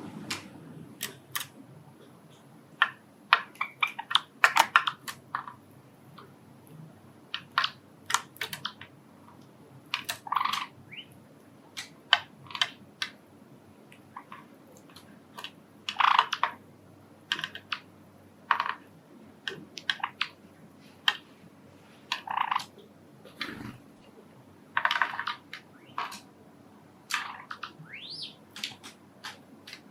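Pet Java sparrows giving short, sharp chirps and clicks at irregular intervals, with the odd brief rising call, over a faint steady hum.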